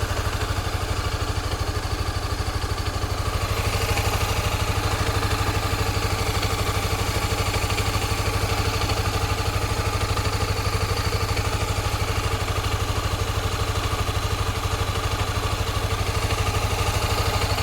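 Honda CBX250 Twister's single-cylinder four-stroke engine running steadily at idle, with the odd noise ("ruido raro") that the owner is asking about; the sound grows brighter about four seconds in.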